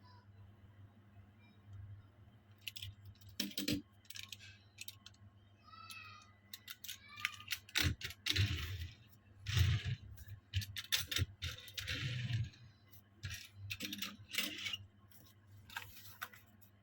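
Small Tomica die-cast toy cars and their boxes being handled during unboxing: a string of sharp clicks and clinks with bursts of rustling, busiest in the middle, over a faint steady hum.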